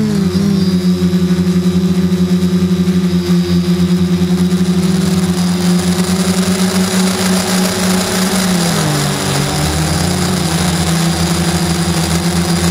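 Q450 quadcopter's electric motors and propellers humming steadily in flight, picked up by the camera on the frame. The pitch drops about eight and a half seconds in and climbs back a second or so later.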